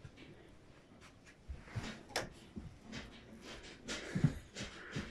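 Scattered soft knocks and light rustling, footsteps on a wooden floor and handling noise, in a small wood-panelled room.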